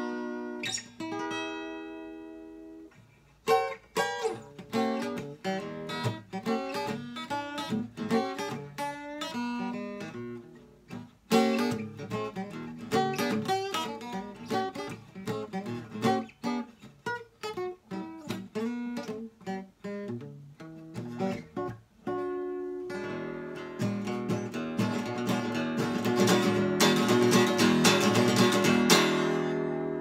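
Vintage East German (GDR) archtop guitar played acoustically. A ringing chord fades out, then quick single-note runs follow, then fast strummed chords begin about two-thirds of the way through and grow louder near the end.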